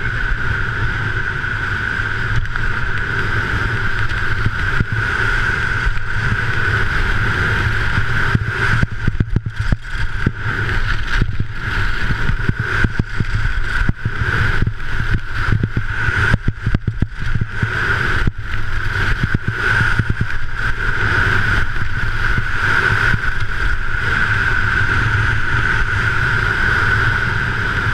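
Wind rushing over an action camera's microphone at skiing speed, with the skis' edges scraping and chattering on hard-packed snow through the turns. A steady whistling tone runs under the rush, and the sound breaks up unevenly in the middle of the run.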